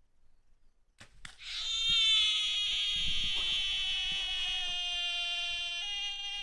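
Wild boar squealing loudly and without a break for about five seconds, the pitch stepping a little twice, starting just after a sharp click about a second in: the cry of a pig struck by an arrow.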